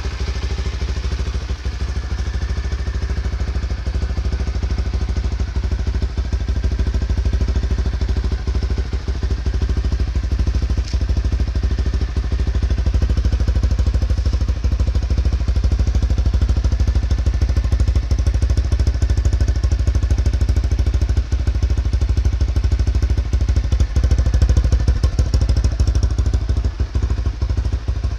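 Honda RS150 fuel-injected single-cylinder motorcycle engine running steadily at idle, a dense even chug of firing pulses.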